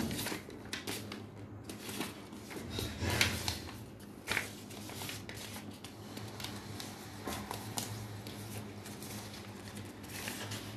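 A sheet of paper rustling and scraping as it is bent and curled into a tube by hand, in irregular soft strokes with a couple of louder crinkles, over a faint steady low hum.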